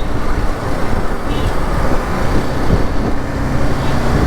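Steady rush of wind and road noise on a moving motorcycle's microphone, with the engine running under it in traffic.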